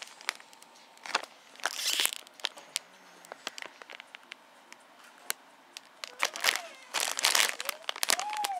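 Plastic snack-food bags crinkling and rustling as they are handled. There are scattered small crackles, with louder bursts of rustling about two seconds in and again from about six to seven seconds in.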